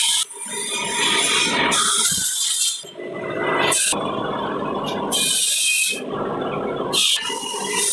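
Wood-processing factory machinery running and rattling, the noise changing abruptly every second or two.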